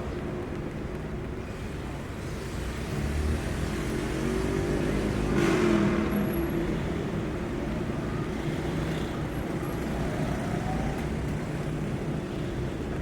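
Engine rumbling steadily, swelling louder and rising in pitch around the middle, as a motor vehicle does when it accelerates or passes.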